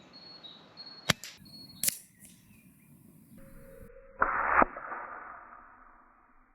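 AirMaks Katran PCP air rifle being readied and fired: two sharp clicks about a second apart, then a louder short blast a couple of seconds later, fading away.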